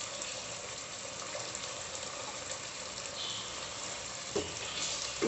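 Chicken curry gravy simmering in a pan on the stove: a steady bubbling hiss. Two brief squeaks, one about four seconds in and one at the end.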